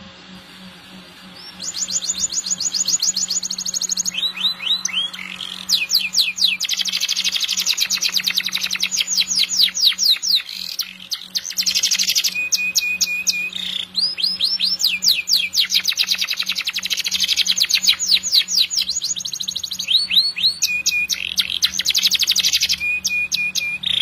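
Domestic canary singing a long, continuous song of fast trills: rapid runs of repeated sweeping notes, with a few short held high tones between them. The song starts about two seconds in and runs on with only brief breaks.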